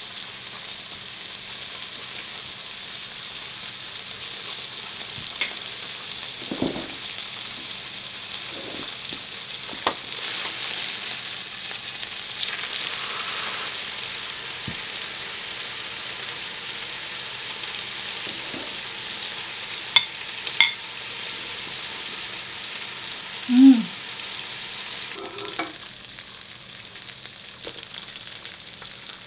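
Pork slices sizzling on an electric tabletop grill plate: a steady frying hiss, with a few light clicks of utensils about two-thirds of the way in and a short low sound soon after.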